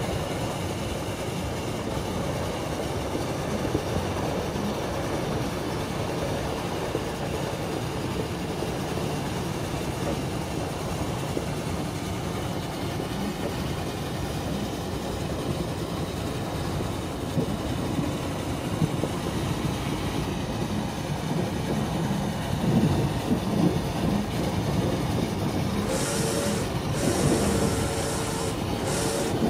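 Steam train running on the rails, heard from inside a passenger compartment: a steady rumble and rattle. It grows rougher and louder in the last several seconds, with short bursts of hiss and a thin steady tone near the end.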